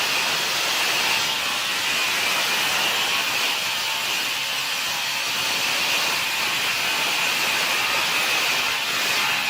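Sawmill machinery running with a steady, high hissing noise and no breaks.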